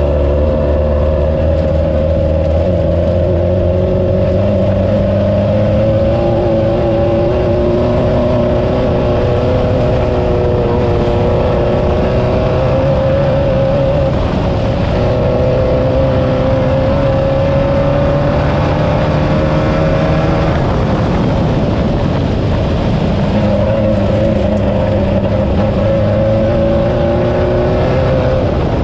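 Class 9 off-road race buggy's air-cooled VW flat-four engine running hard under load, its note rising and falling with throttle and terrain. The steady note breaks briefly about twenty seconds in, then picks up again, over a constant noise of the car at speed.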